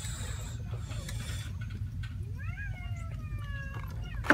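A cat meows once, a single drawn-out call about two seconds in that rises quickly and then slides slowly down in pitch. A short hiss comes near the start, and a sharp click at the very end is the loudest sound.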